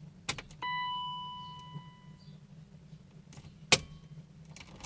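Ignition key clicking in the lock of a BMW E34 530i as it is cycled on and off to prime the fuel system, with the fuel pump fuse pulled. Just after the first click a single electronic chime dings and fades over about a second and a half. A sharper, louder click comes about three and a half seconds in.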